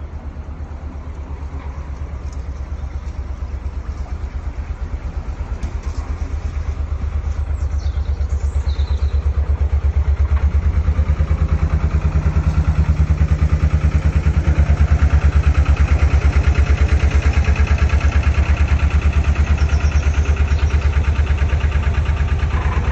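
A narrowboat's diesel engine chugging at low revs with a steady, even beat, growing louder as the boat comes up beneath the bridge.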